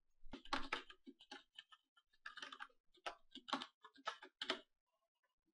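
Typing on a computer keyboard: a quick, uneven run of key clicks lasting about four seconds, then stopping.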